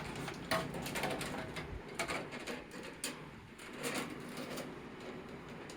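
Plastic parts of a table fan being handled and fitted together during reassembly: a scattered series of light clicks and knocks.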